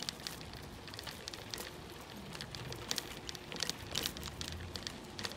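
Bicycle rolling along a gravel and leaf-strewn path: the tyres give irregular clicks and crackles over a low rumble.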